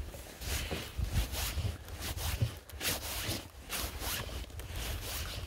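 Green fly line being stripped in by hand through the rod guides and fingers, a run of quick short pulls about two a second.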